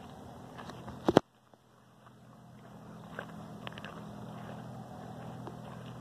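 Handling noise on a handheld recording over a steady low hum: a few sharp knocks, two loud ones about a second in, after which the sound briefly drops out and slowly comes back.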